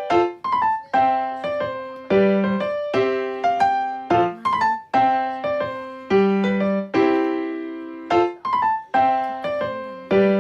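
Background music: a light piano tune, single notes struck in a steady, repeating melodic pattern.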